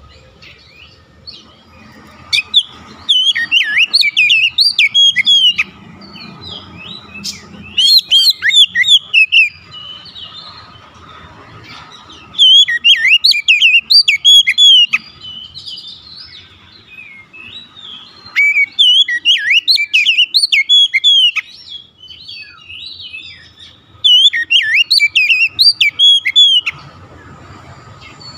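Oriental magpie-robin singing in five loud bursts of a few seconds each: rapid, varied whistled notes and mimicked phrases, with quieter chirps in the pauses between. The bird is stirred up by a rival magpie-robin's song and is pouring out its learned repertoire.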